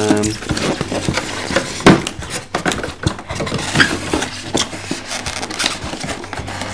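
Crackling and clicking of a stiff clear plastic packing cover being handled and pried at on a polystyrene box, in irregular snaps and rustles.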